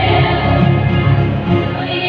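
Live orchestra playing, heard from beside a bowed double bass, with sustained low bass notes under the rest of the orchestra.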